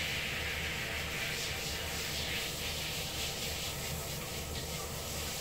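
A hand scrubbing a cat's wet fur: a steady scratchy rubbing hiss over a low hum.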